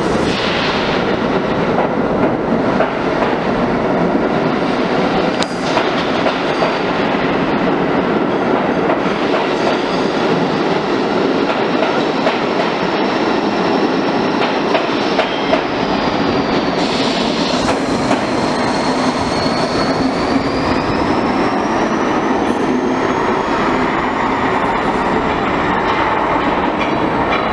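R32 subway train pulling out of an underground station and running off into the tunnel, its wheels clattering over rail joints with a steady loud rumble. A thin high whine runs over it, dipping and then climbing in pitch in the second half.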